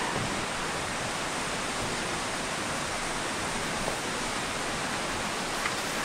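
Mountain stream and small waterfall cascading over bare rock slabs: a steady, even rush of water.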